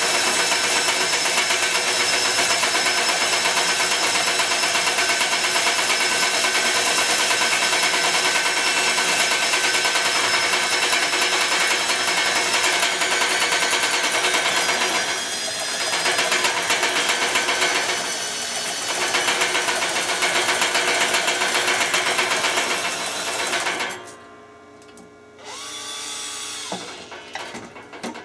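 Makita cordless drill running steadily, turning a spool to reel copper magnet wire off a coil that spins on bearings. Its whine eases off briefly twice, then stops about four seconds before the end.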